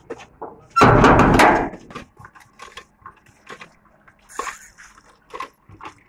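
A rusty sheet-steel farm gate rattling and scraping loudly for under a second, about a second in, as it is swung open. Scattered faint clicks and knocks follow.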